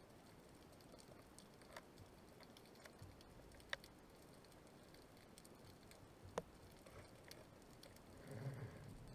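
Near silence of underwater ambience, with a few faint sharp clicks spread through it and a soft rustle shortly before the end.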